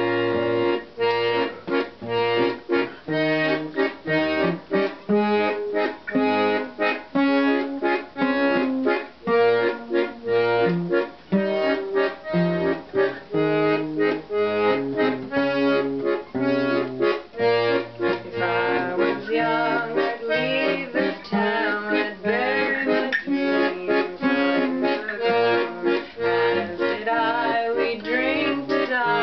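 Piano accordion and strummed acoustic guitar playing a song together, the guitar keeping a steady rhythmic strum. A woman's singing voice comes in over the instruments in the second half.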